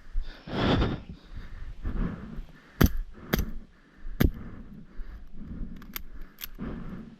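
Airsoft guns firing about five single shots, sharp cracks spaced unevenly over a few seconds. A heavy breath comes near the start.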